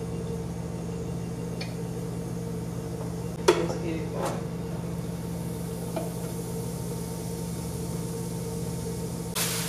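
Wire fry basket of a small electric deep fryer clunking down into place about three and a half seconds in, with a lighter clink just after, then breaded catfish frying in the oil with a faint high sizzle over a steady low hum. A plastic bag rustles near the end.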